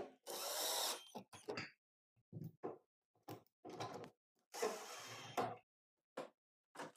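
Cordless drill/driver running in two short spurts, each about a second long, driving screws into the plastic back cover of a CRT television, with brief clicks and knocks of handling between them.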